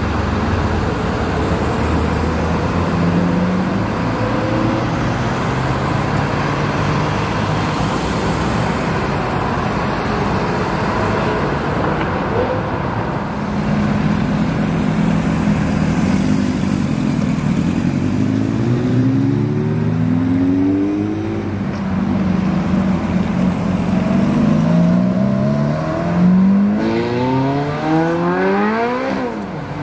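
Sports car engines pulling away: first a Porsche 911 drives off, then a Ferrari F430 Spider's V8 revs up repeatedly as it accelerates away, its pitch rising through each gear and climbing highest near the end.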